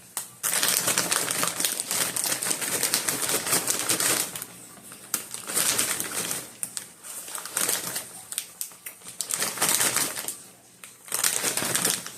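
Close-up chewing and crunching of chocolate-coated popcorn, a dense crackle coming in four bouts of a few seconds with short pauses between.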